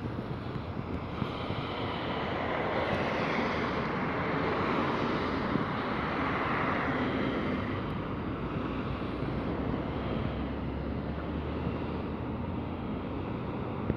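Road traffic noise: a car passing by, its tyre and engine noise swelling and fading about halfway through, over wind rumbling on the microphone.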